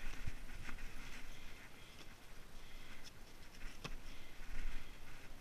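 Light handling noises: a few sharp clicks and knocks among soft rustling, over a low steady rumble, with a brief louder noise about four and a half seconds in.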